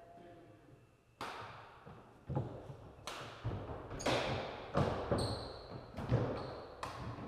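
Badminton rally: sharp racket hits on the shuttlecock roughly once a second, mixed with footfalls and lunges on the court floor, echoing in a gym hall. Two brief high shoe squeaks come near the middle.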